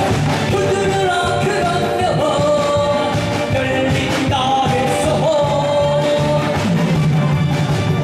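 A singer singing a song over loud backing music.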